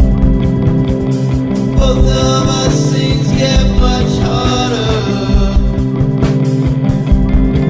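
Music: a guitar song with a steady beat.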